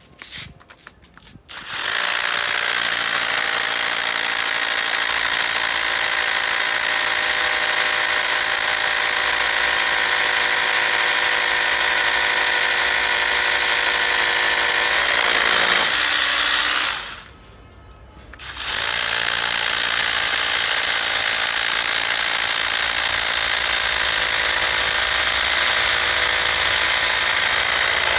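Makita 12V cordless rotary hammer drilling into concrete with a 10 mm bit. It starts about two seconds in and runs steadily, stops for about a second and a half past the middle, then starts drilling again.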